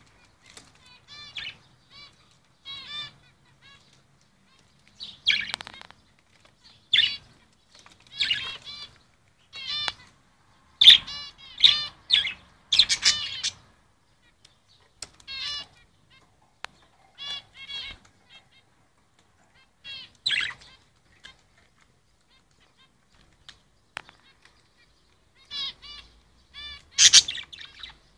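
Small caged parrot chirping in short bursts of quick, repeated chirps with quiet gaps between them. The loudest bursts come near the middle and again near the end, and there is a few seconds' lull shortly before the end.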